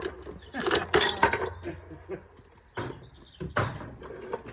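A few sharp metallic clinks and knocks, the loudest about a second in and two more near the three-second mark, as tools and parts are handled.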